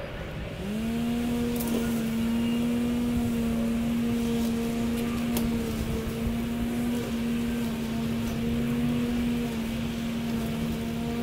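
Ego battery-powered push mower's electric motor starting about half a second in, quickly spinning up to a steady hum that holds while it mows.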